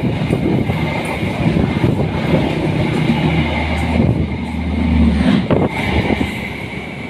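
Train rolling across a bridge: the rumble and clatter of wheels on the rails, with a low hum swelling for a couple of seconds midway.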